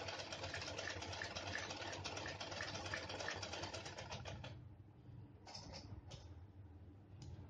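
Black domestic sewing machine running with a fast, even clatter as it stitches a double-folded fabric hem, then stopping abruptly about four and a half seconds in. A few soft clicks follow.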